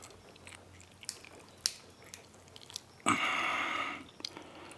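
Faint, scattered clicks and scrapes of lock picks working the pins of a Medeco Duracam padlock core, with one louder sound lasting just under a second about three seconds in.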